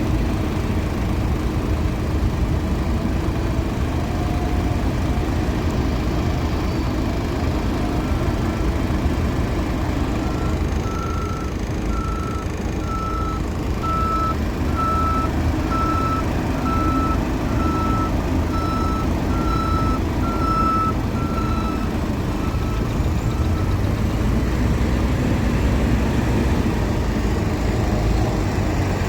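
Diesel engine of a JCB 3DX backhoe loader running steadily. For about fifteen seconds in the middle, its reversing alarm beeps at a steady high pitch, about once a second.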